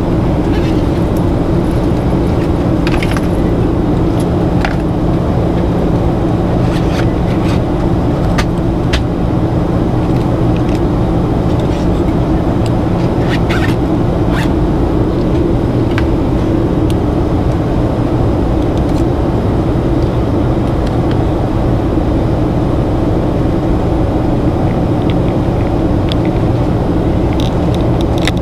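Steady cabin drone of a Boeing 737-800 in flight, heard from a window seat beside the wing: its CFM56-7B turbofans and the rush of air, with a steady low hum. Now and then there are light rattling clicks.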